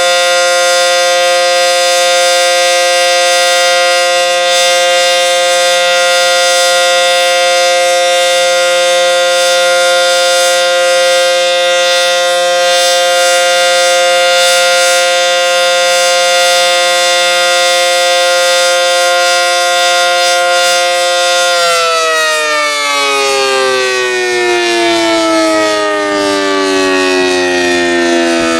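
ACA Banshee 115 outdoor warning siren sounding the full-alert signal, a steady chord of several notes. About three-quarters of the way through it begins winding down, every note sliding lower in pitch as the siren runs down at the end of the test.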